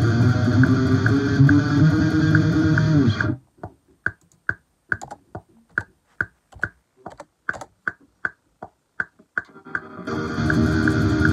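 Electric guitar playing with a steady tick in the mix, stopping about three seconds in. About twenty separate sharp clicks follow at an uneven pace, keys pressed on a computer keyboard, and the guitar music starts again near the end.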